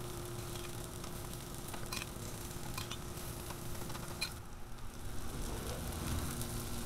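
Faint sizzling of rice and carrots frying on the steel top of a Blackstone 22-inch griddle, with a steady low hum and a few light clicks as the food is placed.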